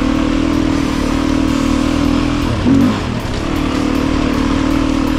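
Beta 350 RR's four-stroke single-cylinder engine running steadily as the dirt bike rides the trail, with a short surge in engine sound a little under three seconds in before it settles back.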